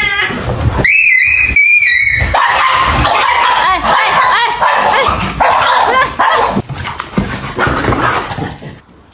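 A dog yelping and whimpering: two high cries about a second in, then a rapid string of shorter whines and yips that die away near the end.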